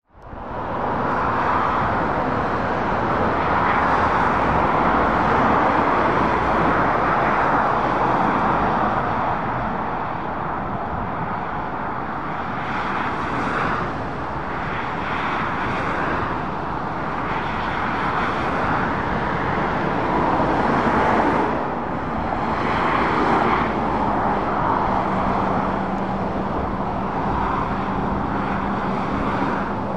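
Dual-carriageway traffic: a steady roar of tyres and engines that swells as cars, vans and lorries pass, with a low steady hum joining near the end.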